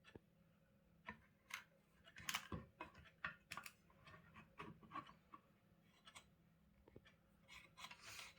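Faint scattered clicks and scrapes of an electric iron's plastic housing parts being handled and fitted together, with a busier run of clicks about two to three and a half seconds in.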